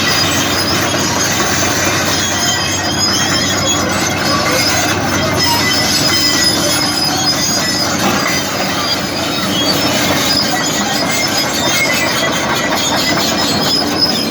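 Hyundai excavator running, a loud steady mechanical din laced with high-pitched metallic squeals.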